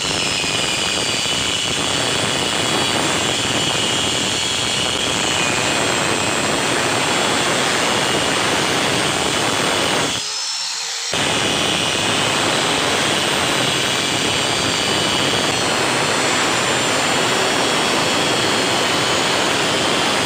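Angle grinder with a thin abrasive cut-off disc cutting through steel square tube: a steady high whine over harsh grinding noise, with a brief drop in level about ten seconds in.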